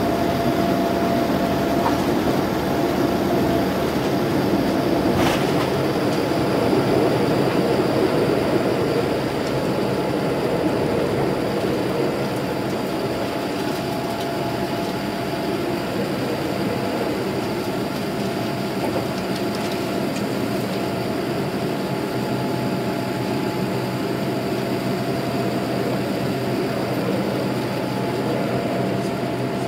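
Cabin noise of a Boeing 787-9 during takeoff: the jet engines at high thrust with a steady drone and faint whine as the aircraft rolls, lifts off and climbs, a little louder for the first nine seconds or so. One sharp click about five seconds in.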